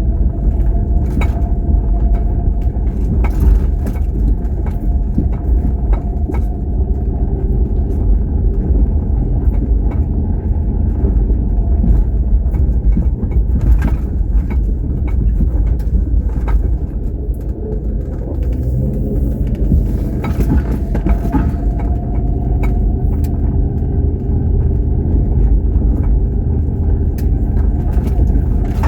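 Car engine and road noise heard from inside a moving car: a steady low rumble. It eases slightly about two-thirds of the way through, then its engine pitch rises as the car speeds up again.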